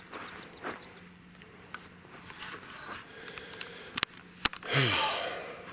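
Footsteps on dry dirt and gravel with light clicks and scrapes of a handheld camera being moved, under a faint rapid high chirping in the first second. A brief, louder rush of noise comes about five seconds in.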